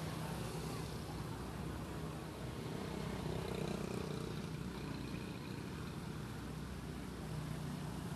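Steady street noise: a motor vehicle's engine running, a low hum that swells slightly now and then, under an even hiss.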